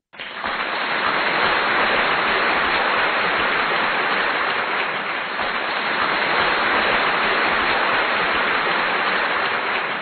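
Dense, steady applause from a sound effect, starting abruptly as the crowd clapping kicks in.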